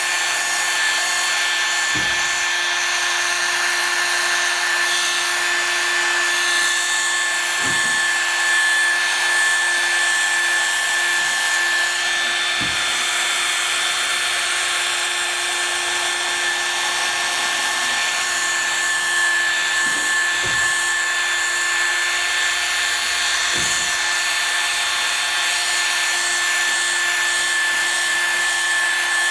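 Electric car polishing machine running steadily: a constant motor whine over a high hiss, with a few brief soft knocks.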